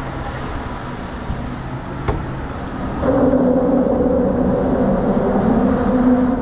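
Engine drone, steady and humming, getting louder about three seconds in, with a single sharp click just before.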